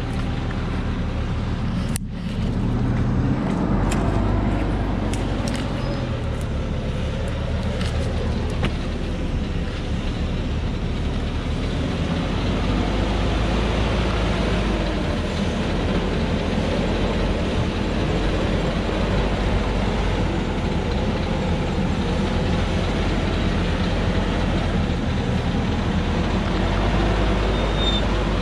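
Diesel engine of a truck loaded with acacia logs working hard as it climbs a steep dirt track, a steady low drone with a brief break about two seconds in.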